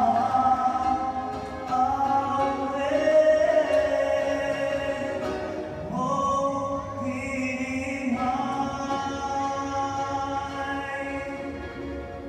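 A group of voices singing a slow, choir-like song in long held notes, a new phrase starting about halfway through and the singing growing quieter near the end.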